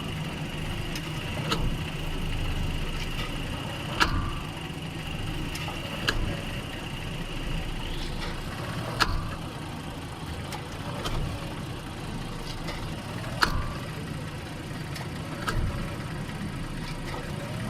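Car engine running, heard from inside the cabin, with a sharp clunk from the driveline every few seconds as drive load comes on and off when pulling away and reversing. The clunk is the sign of a driveline fault that shows only when the load shifts, not at steady cruising.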